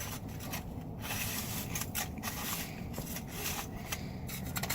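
Toy digger scraping and digging through snow, a run of irregular scraping strokes with short pauses between them.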